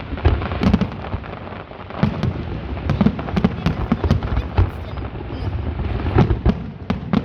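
Fireworks display: a rapid, irregular string of aerial shell bursts and crackling bangs, several a second at times, over a continuous low rumble of distant explosions echoing.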